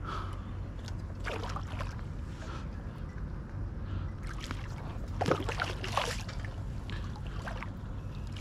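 Hooked sheepshead splashing and thrashing at the water's surface beside a kayak as it is brought in, a few short splashes, the loudest about five to six seconds in, over a steady low hum.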